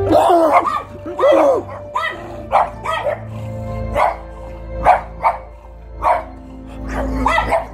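A puppy barking again and again in short, high barks and yips, about a dozen in all at uneven intervals, with music playing in the background.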